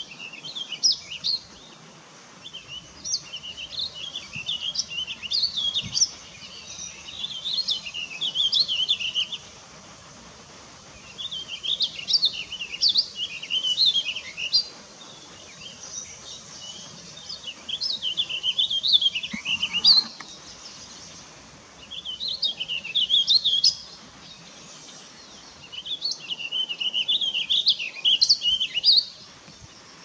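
Small songbirds chirping in high-pitched bursts of a few seconds each, with short pauses between bursts.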